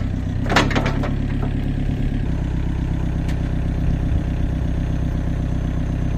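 Takeuchi excavator's diesel engine running steadily at a constant speed, with a metallic clank about half a second in.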